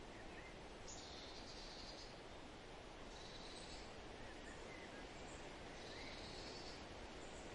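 Faint outdoor nature ambience: an insect trilling three times, each buzzy trill lasting just under a second, with a few faint bird chirps between them.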